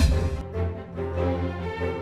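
Background theme music with sustained pitched lines over a pulsing low register. A bright swell at the very start cuts off about half a second in.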